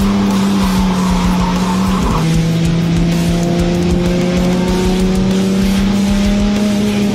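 A car engine held at high revs, its note dropping about two seconds in and then slowly climbing again, over rock music.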